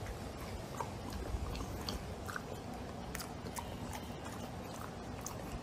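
English bulldog mouthing and smacking its lips, a scattering of short wet clicks over a low rumble.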